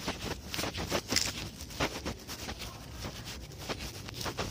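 Irregular rustling, scraping and soft knocks of a phone being carried by someone walking outdoors, with footsteps and a little wind noise on the microphone.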